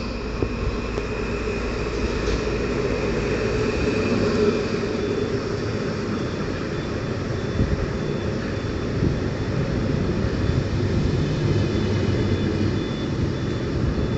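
PKP Intercity electric train running past close alongside the platform: a steady rumble of wheels on rail with a few sharp knocks.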